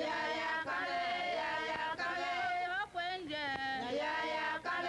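Voices singing a song, holding long notes and sliding in pitch between short phrases.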